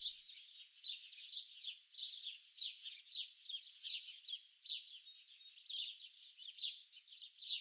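Small songbirds chirping busily: a steady stream of quick, high-pitched falling chirps, several a second, overlapping throughout.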